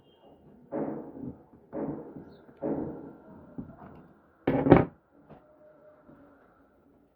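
Workshop handling noises: three short scraping or rasping strokes, then two sharp knocks in quick succession about four and a half seconds in.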